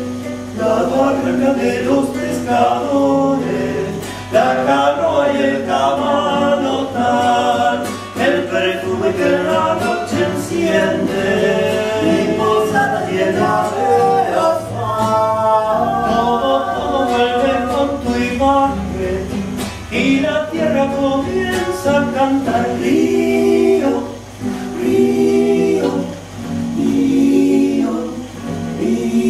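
Two men and a woman singing a song together in vocal harmony, with brief breaths between phrases near the end.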